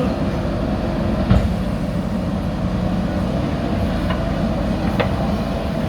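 Backhoe loader's diesel engine running steadily, with a clank about a second in and a lighter knock near the end.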